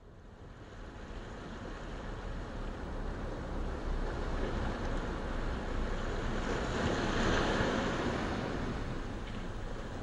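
Ocean surf: a steady rush of breaking waves that fades in, swells to its loudest about seven seconds in, then eases a little.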